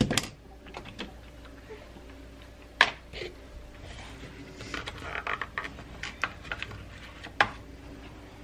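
Small plastic clicks and knocks as a baby bottle is made up: the bottle's cap set down on the counter, a powdered-formula tub's lid snapping open with a sharp click about three seconds in, then the scoop scraping and tapping in the powder.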